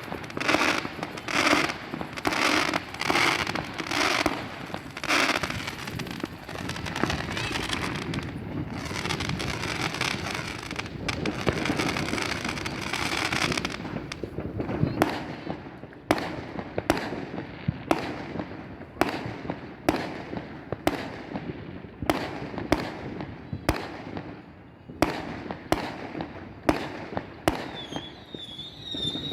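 Fireworks going off: a fast run of bangs, one or two a second, then a dense crackle through the middle, then sharp single bangs about once a second. Whistling rockets rise near the end.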